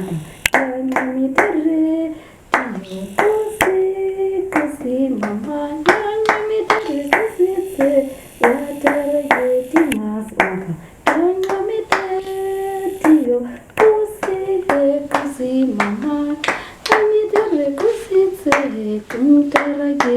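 A voice singing a melody with long held notes, accompanied by sharp hand claps keeping a steady beat.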